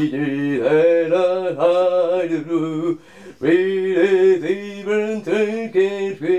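A man singing solo and unaccompanied, improvising a slow song in foreign-style words, holding long, wavering notes with a short break for breath about three seconds in.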